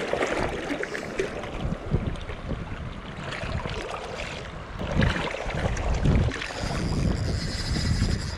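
Wind gusting on the microphone over water splashing and lapping in the shallows.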